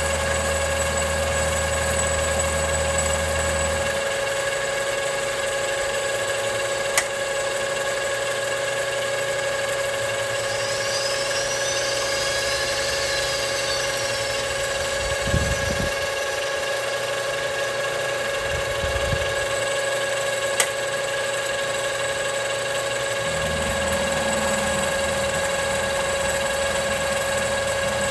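A machine running steadily with a constant whine. Its low hum drops away about four seconds in and comes back near the end, with two sharp clicks and a brief high scraping sound in between.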